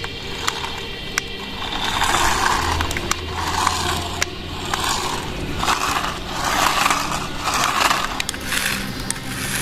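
Remote-control toy car driving on a hard surface: uneven rolling and scraping noise that swells and fades, with scattered sharp clicks.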